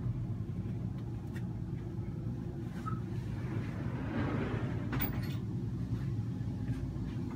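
Steady low mechanical hum inside a boat cabin, with a brief rustle about four seconds in and a couple of sharp clicks about a second later.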